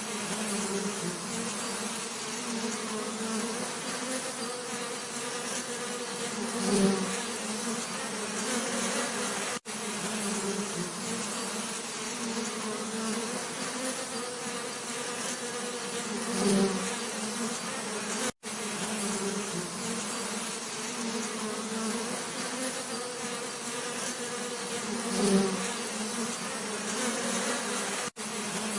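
Bees buzzing in a steady drone with a low hum. About every nine seconds a bee swells louder for a moment, and there are three very brief gaps in the sound.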